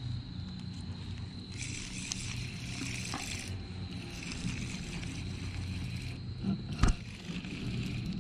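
Ultralight spinning reel being cranked to bring in a hooked fish: a soft, uneven whirring over low rubbing and handling noise, with one sharp knock about a second before the end.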